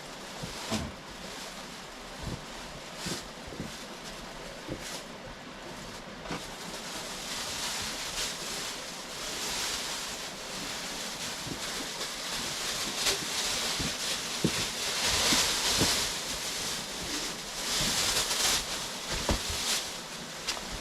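Plastic tarp rustling and crinkling as it is handled and spread out, in swelling waves of hissy crackle, with scattered light knocks and clicks throughout.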